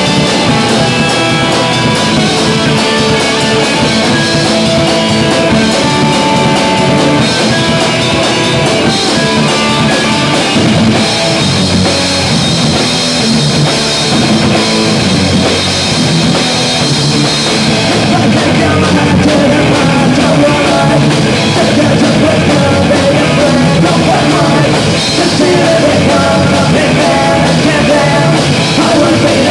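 Punk rock band playing live, with electric guitar and drum kit, loud and continuous.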